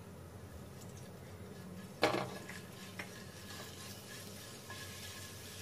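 Silicone spatula stirring garlic paste through olive oil in a ceramic-coated frying pan, with one sharp knock of a utensil against the pan about two seconds in and a lighter click a second later, over a low steady hum.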